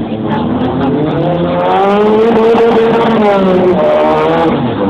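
Ford Sierra RS Cosworth's turbocharged 2.0-litre four-cylinder engine revving: the revs climb, hold high for about a second, drop back, then begin rising again at the end.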